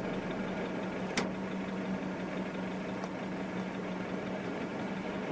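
Car engine idling steadily, a low hum under a light hiss, with one short click about a second in.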